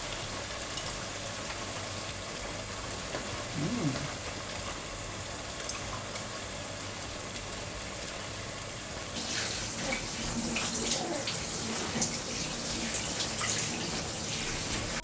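Water spraying from a handheld shower head into a bathtub as a child's hair is rinsed: a steady hiss that starts abruptly about nine seconds in. Before that there is only a low steady room hum.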